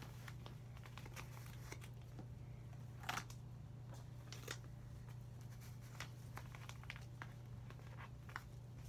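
Quiet crinkling and rustling of paper with scattered small clicks as paper and felt-tip markers are handled, one a little louder about three seconds in, over a steady low hum.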